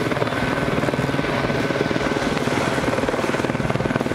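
Helicopter flying close overhead, its rotor blades giving a fast, even, steady chop.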